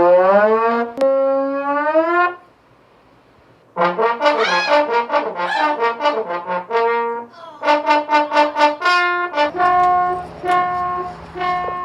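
Comic trombone-like brass sound effects: a long upward slide, then after a short gap a quick run of wobbling, bending notes. This is followed by rapid short blasts and a few evenly spaced repeated notes near the end.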